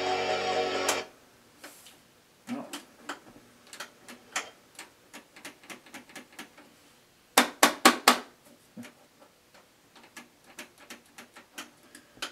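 Music playing from the Lasonic TRC-975 boombox's cassette deck cuts off about a second in. A run of plastic clicks and clunks follows as the boombox's buttons and switches are worked to free a cassette jammed in the deck, with a loud cluster of four or five clicks about seven and a half seconds in.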